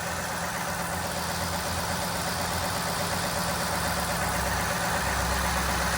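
Ford F-150 engine idling smoothly and quietly, with no cam-side knock: a steady, even run after the camshaft bearing caps that had been fitted backwards were put right.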